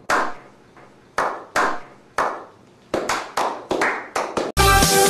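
A slow clap by a small group of men: single sharp claps about half a second apart, each with a short echo, speeding up to several claps a second. Electronic dance music cuts in abruptly near the end.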